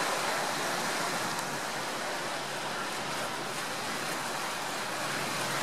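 Sea waves washing against a rocky shore: a steady rushing with no distinct breaks.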